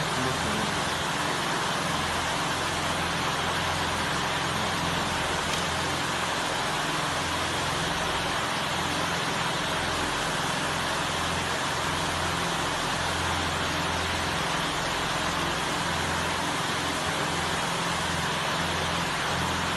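Steady rushing background noise with a low hum that comes and goes.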